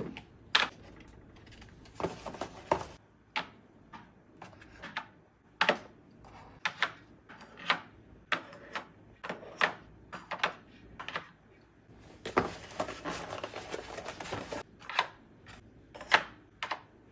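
Plastic and glass food containers clicking and knocking as they are set down and arranged in a refrigerator, about one sharp knock a second, with a longer rustle of packaging about twelve seconds in.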